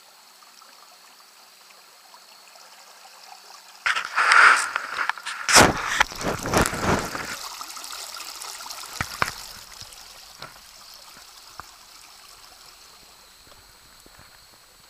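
Water trickling and swishing past a small boat's hull and an electric trolling motor's shaft as the boat moves along. About four seconds in comes a loud rush of water that fades over the next few seconds back to a faint trickle.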